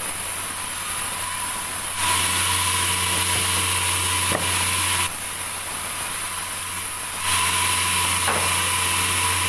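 Sawmill saw running with a steady low hum, cutting a large meranti log. The sound turns louder and hissier, with a rasping edge, about two seconds in and again past seven seconds, dropping back to the quieter hum between.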